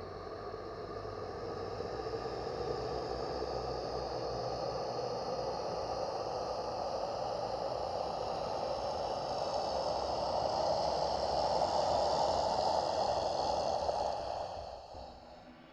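Designed ghost 'wake' sound effect: an airy, hissing drone with faint held tones that slowly swells, peaks about three quarters of the way through, then fades away near the end.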